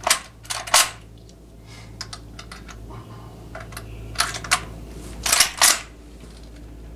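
Sharp metallic clicks and clacks of a Big Horn Armory Model 89B lever-action rifle being handled, loaded and cycled, in several short clusters. The lever action chambers a .480 Ruger round.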